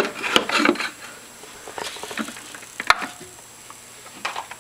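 Handling noises: a few sharp clicks and light rustling as a cocoa K-Cup is picked up and handled.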